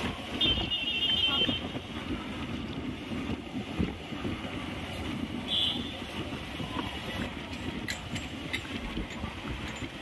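Steady low rumble of road traffic with wind buffeting the microphone. A short high warbling sound comes in about half a second in and again more briefly about five and a half seconds in.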